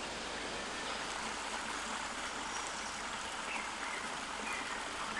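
Running water: a steady, even rush of falling and flowing water.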